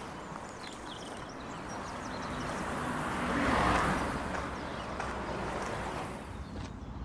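Road traffic on a highway: a steady hum of tyres, with one vehicle passing that swells and fades around the middle.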